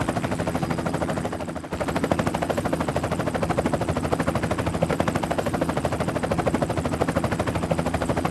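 Helicopter rotor chop: a steady, rapid beat of several pulses a second over a low engine hum, dipping briefly about a second and a half in.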